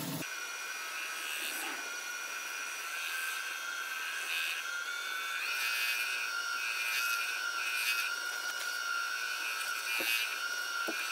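Wood lathe running with a steady high whine from its variable-speed motor while a cloth is held against the spinning elm platter to buff in an oil-and-shellac finish.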